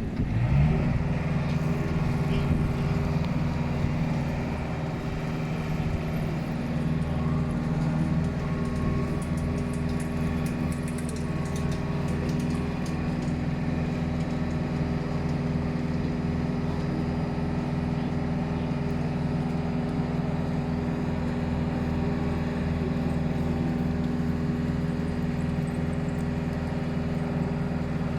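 A large vehicle engine running steadily at a constant speed, with a low, even hum.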